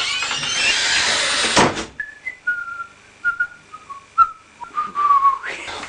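A person whistling a short tune of a few notes that mostly step downward, after about two seconds of loud rushing noise.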